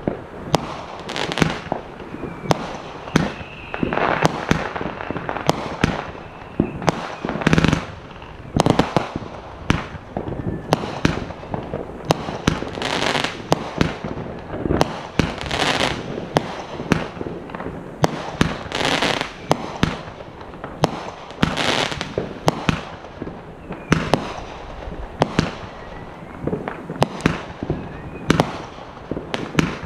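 Fireworks display going off continuously: a rapid, uneven stream of sharp launch and burst reports, several a second, with longer bursts lasting about a second every few seconds.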